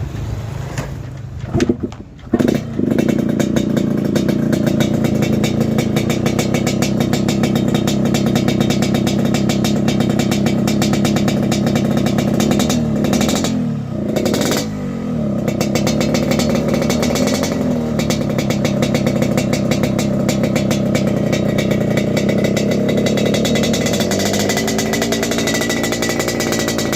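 Yamaha RX-King 135cc two-stroke single-cylinder motorcycle engine breathing through a stainless-steel cobra-style under-belly expansion-chamber exhaust that has been set up for a raspy 'ngorok' note. After a few sharp sounds about two seconds in, the engine runs loud and steady, dips briefly about halfway through, and revs up again near the end.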